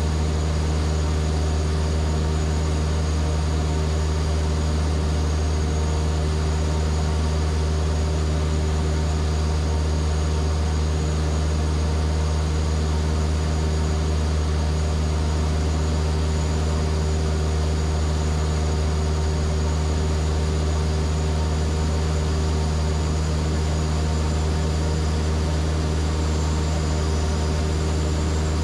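Vans RV-7A's piston engine and propeller running steadily in flight, heard inside the cockpit as a constant low drone that holds the same pitch throughout.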